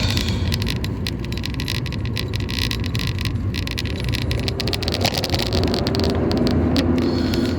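A car driving along: a steady low engine and road rumble, with small rattles and ticks over it.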